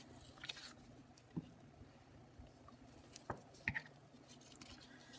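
Faint rustling and crinkling of torn watercolor paper strips being lifted and handled by hand, with a few short sharp crackles, the loudest a little after three seconds and about three and a half seconds in.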